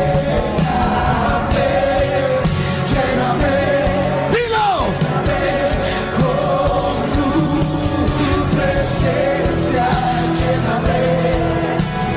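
Christian worship song: sung vocals over a full band, with a sharp falling glide in pitch about four and a half seconds in.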